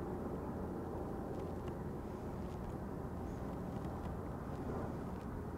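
Steady low seaside background rumble of wind and water, with a few faint ticks and no distinct event.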